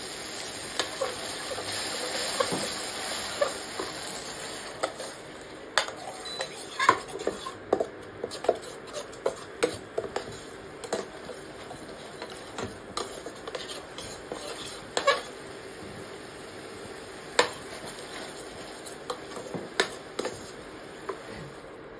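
A metal spoon stirring a sauce in a stainless steel frying pan, with many irregular clinks and scrapes against the pan. For the first few seconds, water just added to the hot sauce sizzles.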